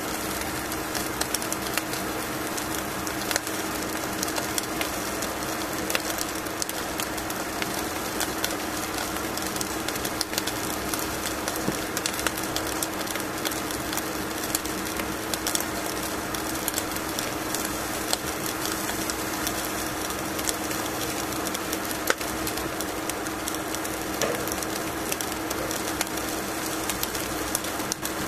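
Salmon fillet on aluminium foil sizzling over the heat: a steady hiss with frequent small crackles and pops, over a steady low hum.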